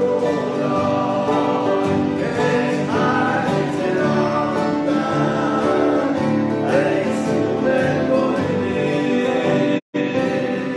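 Two men singing a Norwegian hymn together, accompanied by two strummed acoustic guitars. The sound cuts out completely for a moment near the end, then the music resumes.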